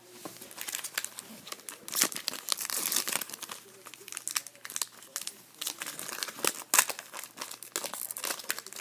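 The wrapper of an Upper Deck SP Authentic hockey card pack being torn and crinkled by hand: a dense, irregular crackling with sharper rips. The wrapper isn't tearing cleanly.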